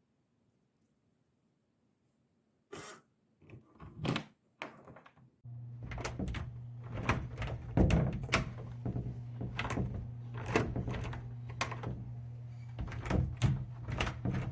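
Repeated clicks and knocks of a door lock and its handle being handled, starting about three seconds in, with a steady low hum joining from about halfway through.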